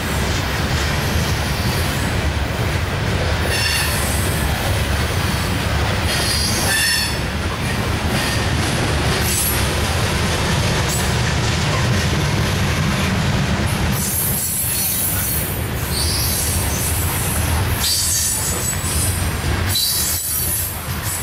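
Coal train hopper cars rolling past: a steady low rumble of steel wheels on rail, with high-pitched wheel squeal coming and going several times.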